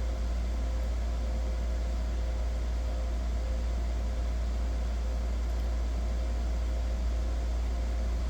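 Steady low background hum with an even hiss and a faint steady higher tone, unchanging throughout.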